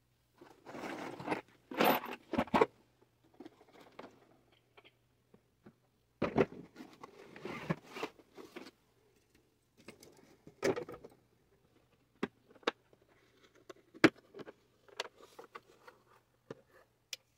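Hard plastic tool case being handled and opened: rubbing and scraping on the plastic in several short bursts, then a run of sharp clicks in the second half, such as its latches and lid give when opened.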